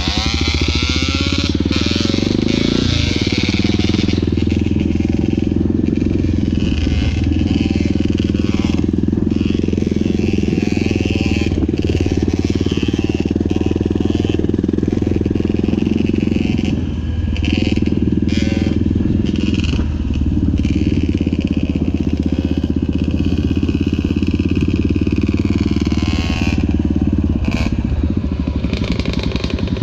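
Honda XR650 dirt bike's single-cylinder four-stroke engine running steadily under throttle on a dirt trail, dipping briefly about three seconds in and again a little past halfway.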